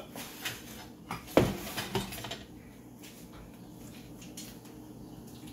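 Metal cookware and utensils clattering at the stove: a few sharp knocks, the loudest about a second and a half in with a short ring, as the wok and tray are handled. After that, only a faint steady hum.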